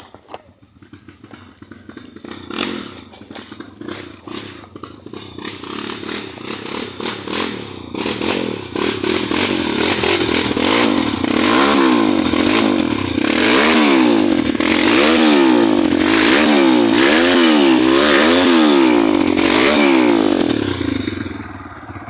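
Motorcycle engine, quiet at first, growing louder, then revved up and down over and over, its pitch rising and falling about once a second. It dies down near the end.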